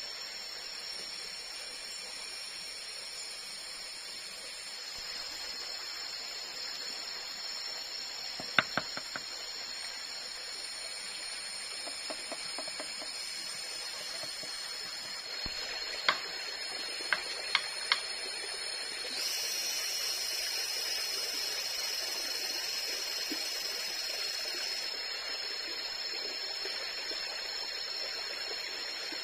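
Tropical forest ambience: a steady hiss of running water under a high, steady insect chorus that grows louder about two-thirds of the way through. Around the middle come a few sharp clicks as a metal spoon knocks against a split bamboo cooking tube.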